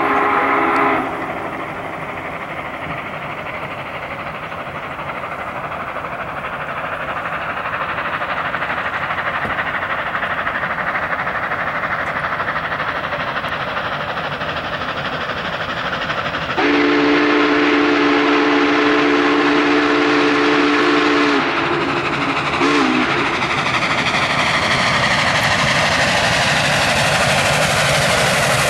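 Union Pacific 844, a 4-8-4 steam locomotive, approaching at speed, its running noise growing louder and hissier as it nears. Its steam whistle sounds a chord of several notes: one blast ending about a second in, a long blast of about four seconds starting past the midpoint, then a short toot about a second later.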